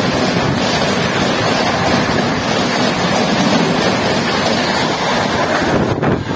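Red-and-grey LHB passenger coaches rushing past at high speed: a loud, steady rush of steel wheels on rails and displaced air. It stops suddenly near the end.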